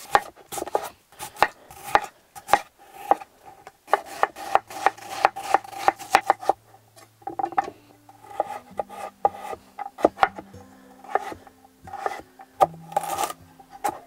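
Chef's knife chopping firm vegetables on a wooden cutting board: irregular sharp knocks of the blade hitting the board, several a second. Soft sustained background music notes sit underneath.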